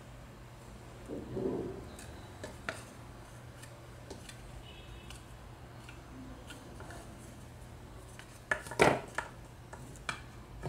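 Pliers working craft wire: scattered small metallic clicks and clinks as the wire is gripped and bent into coils, with a louder clatter of several clicks near the end.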